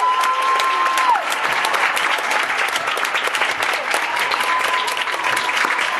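Audience clapping and applauding in an ice rink, with a held high tone at the start that cuts off about a second in.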